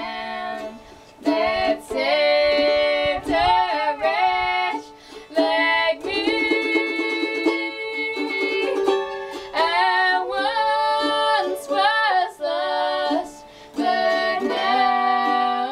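Two girls singing together in phrases with short pauses, accompanied by a mandolin, with a stretch of rapid mandolin picking partway through.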